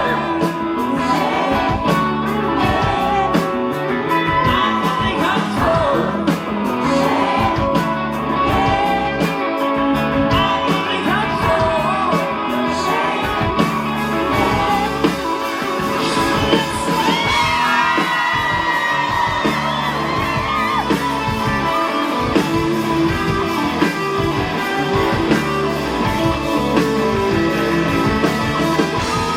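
Live rock band playing loudly in a club, with a singer's vocals over electric guitars, bass and drums.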